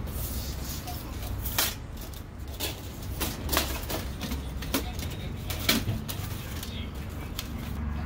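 A handful of separate sharp knocks and clicks, about one a second, over a low steady hum.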